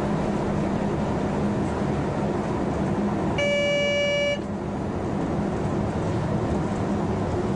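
Cab of a class 140 (E 40) electric locomotive under way: steady running noise, with a single high horn-like tone lasting about a second some three and a half seconds in.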